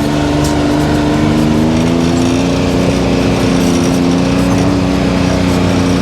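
2023 Can-Am Maverick X3 DS Turbo side-by-side's turbocharged three-cylinder engine running steadily, its pitch rising slightly about two seconds in.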